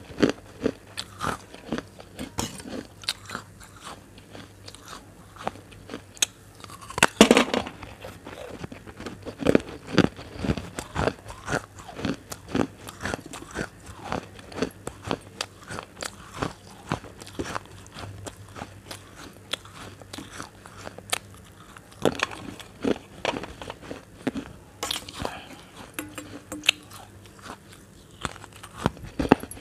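Close-up crunchy eating: irregular crisp bites and crunching chews of food taken from a spoon, with a few louder crunches, the loudest about a quarter of the way in.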